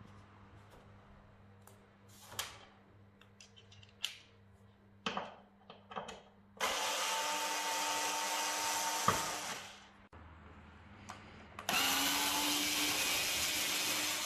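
Small cordless screwdriver running in two bursts of about three seconds each, backing out the screws of a flat-screen TV's back panel, each run tailing off as it stops. Before the first run, a few light clicks and taps from handling.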